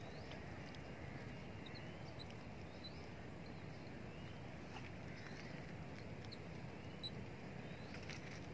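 Faint outdoor ambience: a steady low background rumble with scattered short, high chirps of small birds.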